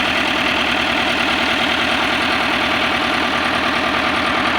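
Diesel dump truck engine idling steadily with an even, rapid pulse.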